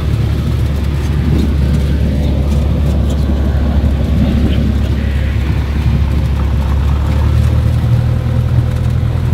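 Cessna 172's engine and propeller running steadily after landing, heard inside the cabin as a continuous low drone. About seven seconds in, its pitch shifts slightly.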